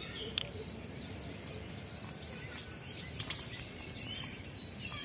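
Faint outdoor ambience with a few scattered bird chirps over a steady low hiss. Two sharp clicks, one about half a second in and another about three seconds in.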